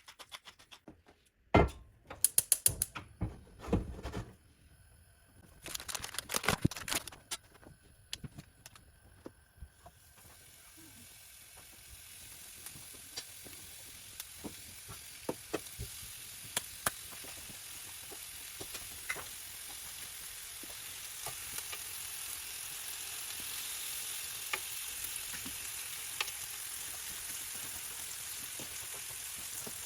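Several knocks and clatters of handling for about ten seconds, then a frying pan starting to sizzle, a steady hiss with fine crackles that grows gradually louder as it heats.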